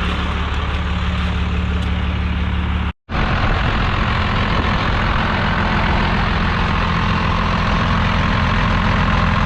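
Turbo-diesel pickup engine idling steadily. The sound cuts out for an instant about three seconds in, then the idle carries on.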